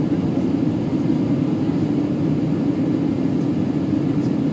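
Steady cabin noise inside an Airbus A320 airliner on its descent: the jet engines and rushing air make an even, unbroken low drone.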